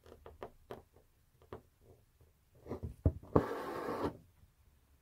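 Hand embroidery with metallic sqalli thread on fabric stretched in a hoop: small ticks of the needle piercing the taut cloth, a sharper tap about three seconds in, then a rasp of less than a second as the thread is drawn through.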